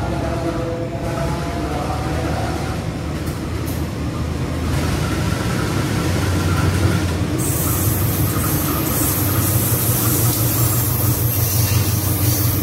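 KAI CC201 diesel-electric locomotive hauling a passenger train into the station, its diesel engine giving a steady low drone that grows louder as it draws near. About seven seconds in, a loud high hiss from the passing train joins the drone.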